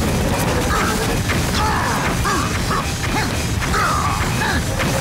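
Mechanical clanking and crashing battle sound effects over action music, with short wavering whistle-like glides.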